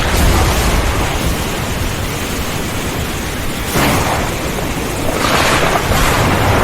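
Thunderstorm: steady rain with a deep rolling rumble of thunder, and two louder bursts of thunder about four and five seconds in.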